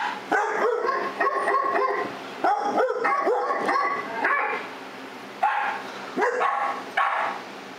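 Dogs barking: a fast run of barks, then three single barks a little under a second apart near the end.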